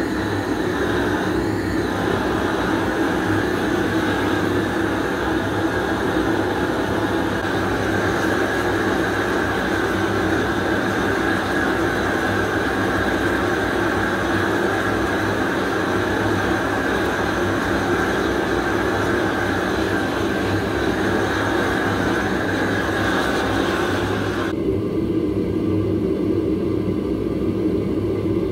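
Propane torch and gas furnace burner running with a loud, steady rushing hiss while melting a zinc anode in a cast iron pan. About 24 seconds in, the higher hiss cuts off abruptly, leaving a lower steady rumble.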